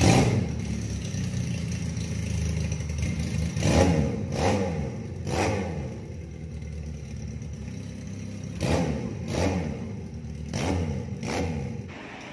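Benelli Patagonian Eagle 250cc V-twin motorcycle engine firing up, then idling through its exhaust with short throttle blips: three a few seconds in and four more later, each revving up and falling back to idle.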